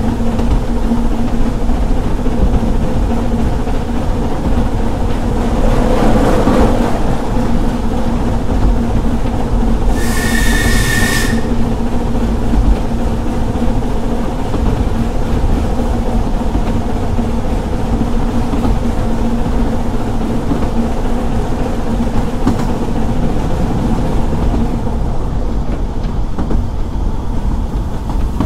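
Narrow-gauge steam train running at speed, heard from a carriage behind the double Fairlie locomotive Merddin Emrys: a steady rumble of wheels on rail. About a third of the way in, the locomotive's whistle gives one short, high-pitched blast with a hiss, lasting about a second.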